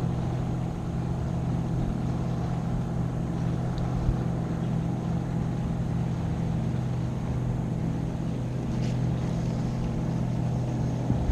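Boat motor running with a steady, even hum that does not change in pitch.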